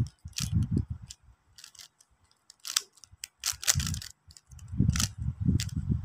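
Rubik's cube being turned in quick moves: scattered sharp plastic clicks, mixed with low thumps and rustling of a hand brushing close to the microphone.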